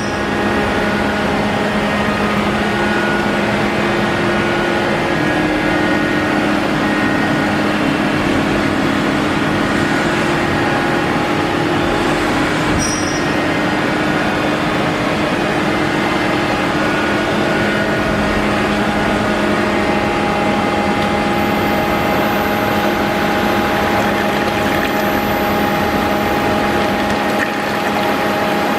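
Self-priming impeller pump of a coolant-cleaning unit running steadily as it pumps CNC milling emulsion: a constant noisy drone with a few steady tones held over it.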